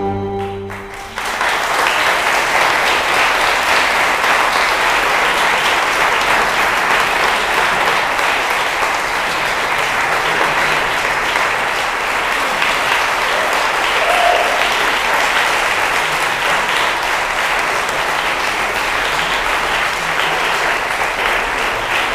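Audience applauding steadily, breaking out about a second in as the closing string music ends.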